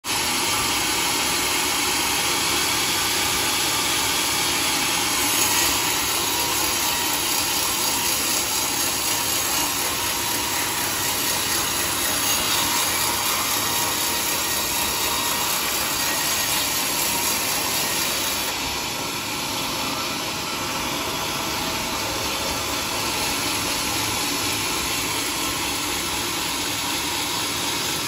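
Band sawmill running steadily, its blade cutting through a teak log. The sound eases slightly a little past halfway.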